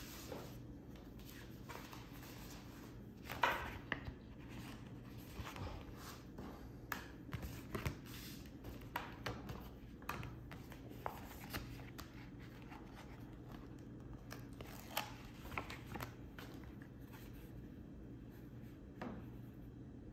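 Hands handling a plastic phone case and sticker sheets on a tabletop. Scattered small taps, clicks and paper rustles, the loudest a knock about three and a half seconds in, over a low steady hum.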